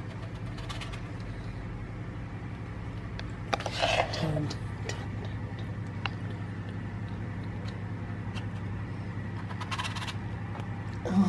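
Spoon scraping thick cupcake batter into paper cases in a metal muffin tin: soft scrapes and light clicks over a steady low hum. A short voice sound falling in pitch comes about four seconds in.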